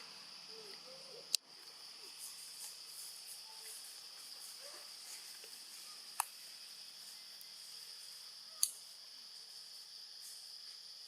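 A steady, high-pitched drone of insects such as crickets or cicadas. Three sharp clicks cut through it, about a second in, near the middle and past two-thirds of the way.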